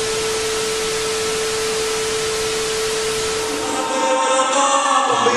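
TV static sound effect: a steady hiss with a single held tone under it. About four seconds in, the hiss thins and music with singing voices fades in.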